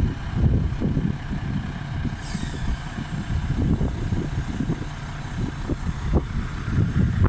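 Heavy diesel engine running with a rough low rumble, and a short hiss falling in pitch about two seconds in.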